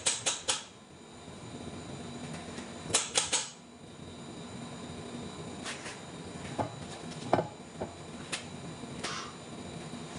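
Sharp clicks and light metallic knocks as a crane-hung steel flange ring is jogged into place on a lathe chuck: a quick group of three near the start, another group about three seconds in, then scattered single clicks and knocks. A steady workshop hum runs underneath.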